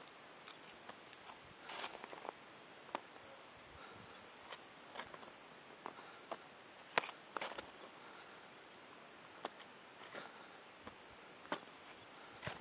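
Faint, irregular small crunches and clicks close to the microphone over a steady hiss, the loudest about halfway through.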